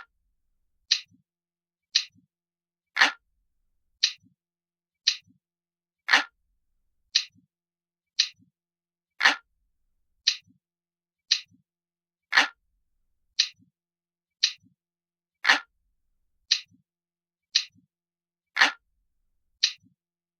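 Clock ticking at about one tick a second: sharp, even ticks with every third tick heavier.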